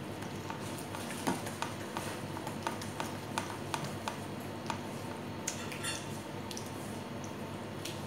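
A gloved hand mixing a thick yogurt and spice marinade in a stainless steel bowl: soft squishing with scattered light clicks.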